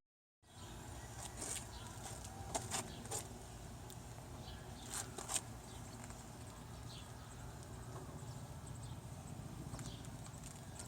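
Faint background ambience, a low steady hum with a few scattered light clicks or taps.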